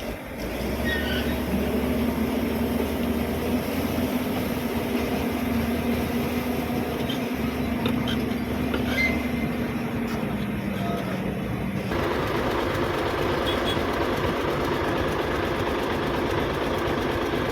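Shantui SD16E crawler bulldozer working: a steady diesel engine under load with clanking steel tracks. The engine note sags slightly, then the sound changes abruptly about twelve seconds in.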